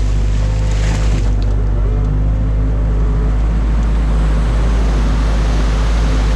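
Stream water rushing and churning through an opened beaver dam, over the steady low running hum of an excavator's diesel engine.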